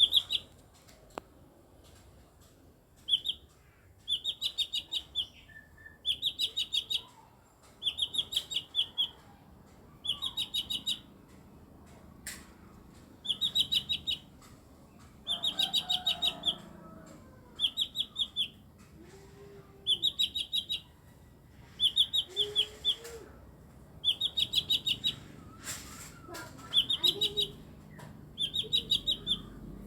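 Lesser green leafbird (mini cucak ijo) calling in repeated bursts of rapid, high chattering notes, each burst about a second long, roughly one every two seconds: an unusual, strange-sounding call for the species.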